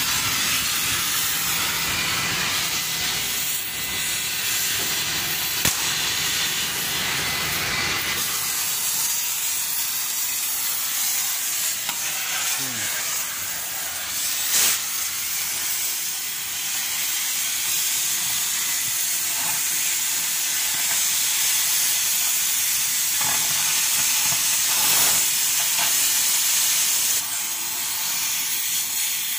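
Stick-welding arc crackling and hissing steadily as teeth are welded onto a loader bucket. A low rumble runs underneath and drops away about a quarter of the way in.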